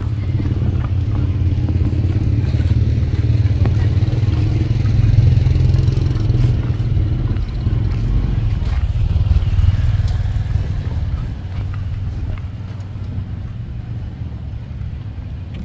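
Street traffic: a low rumble of passing road vehicles that swells in the middle and eases off near the end.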